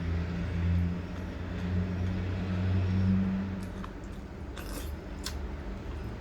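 A low, steady motor hum that fades out a little before four seconds in, followed by a few short, sharp clicks.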